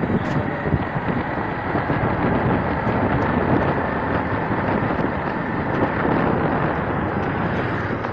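Steady rushing wind noise on the microphone with the running noise of a moving vehicle, as heard while travelling on the road.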